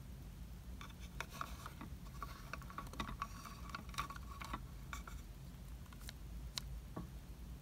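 Small plastic toy tray scraping and rubbing as it is slid out of a miniature toy oven, with light plastic clicks and taps; a few separate clicks come near the end as the tray is handled.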